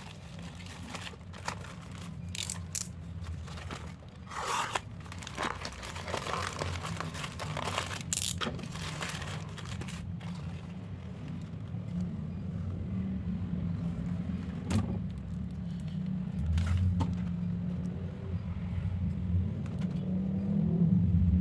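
Packaging being handled and torn open, with irregular crinkling, tearing and scraping, busiest in the first half. A steady low hum runs underneath and grows into a louder rumble near the end.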